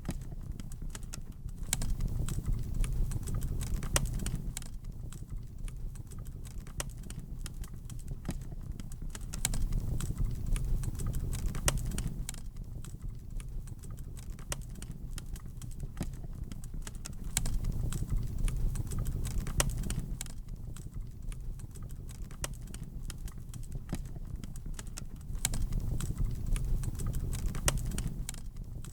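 Wood fire crackling in a fireplace: frequent sharp pops and snaps over a low rumble of flames that swells and fades about every eight seconds.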